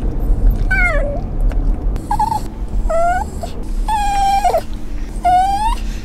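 Italian greyhound whining in a car: five high-pitched whines about a second apart, several rising in pitch and one held longer, over the car's low road rumble.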